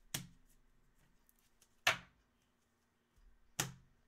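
Three sharp taps of plastic card holders knocked and set down on a wooden tabletop, about one every two seconds, the middle one the loudest.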